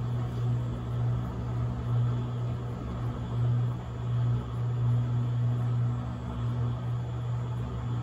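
Electrolux LAC17 washing machine running: a steady low motor hum that swells and eases about every one and a half seconds.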